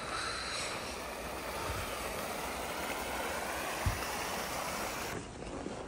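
Shallow creek running over rocks, a steady rushing of water that drops away suddenly about five seconds in, with a soft low thump near four seconds in.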